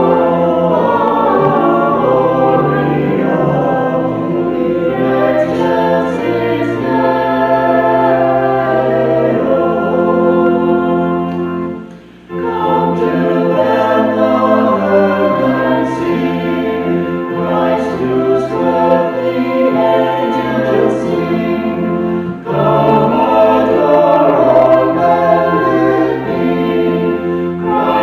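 A choir singing a Christmas carol in parts, over sustained low bass notes, with a short break between phrases about twelve seconds in.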